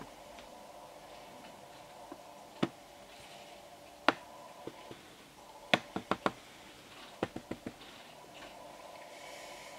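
Sharp clicks over a steady faint hum: two single clicks, then two quick runs of about four clicks each.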